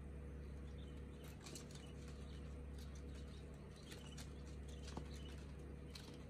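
King quail chicks flapping their wings and scrambling as they try to fly out of the bin, with faint bursts of scratchy fluttering and rustling on paper, over a steady low hum.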